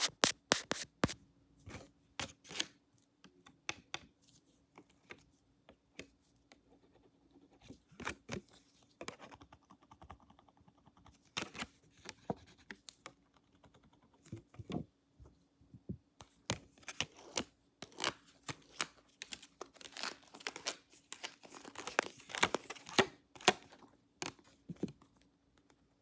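Close-miked ASMR handling sounds: irregular clicks, scratches and crinkles from hands and props worked right at the microphone, denser in the second half, over a faint steady hum.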